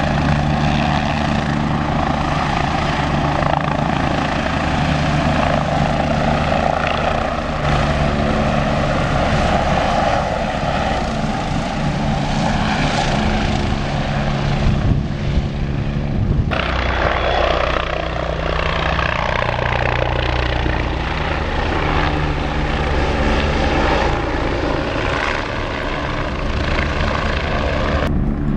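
Helicopter in flight close by: steady rotor and turbine engine noise with a held pitch. The sound changes abruptly about halfway through.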